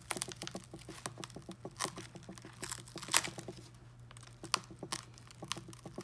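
Cracked iPad mini screen glass crackling and clicking as it is pried up from the edge with a thin metal pick: a scatter of small, irregular cracks and clicks, a few of them sharper.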